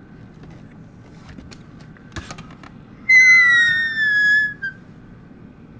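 A boy's high-pitched, squealing laugh: one long note that slowly falls in pitch, starting about three seconds in, after a few faint stifled snickers.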